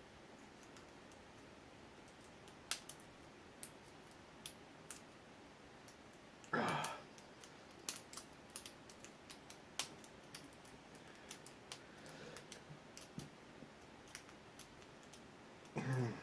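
Faint, irregular clicks of a lock pick and tension wrench working the pins inside an ABUS 83AL/45 padlock's cylinder. A louder breath comes about six and a half seconds in and another near the end.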